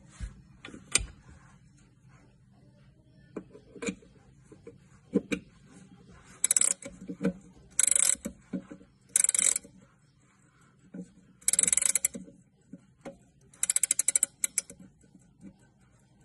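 Soviet 5-ChS ship's clock being wound with its key: five short bursts of rapid ratchet clicking, with a few single knocks from handling between them.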